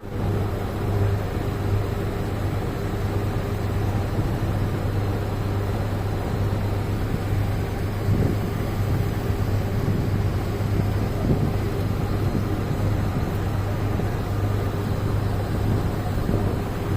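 A vehicle's engine running at a steady, even drone, with a constant low hum under a rushing noise.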